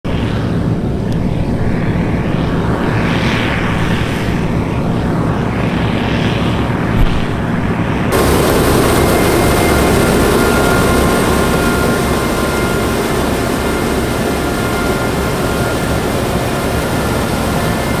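Massey Ferguson 760 combine harvester running under load, its six-cylinder Perkins diesel engine giving a low steady hum. About eight seconds in the sound cuts abruptly to a louder, hissier mix of engine and machinery with steady whines over it.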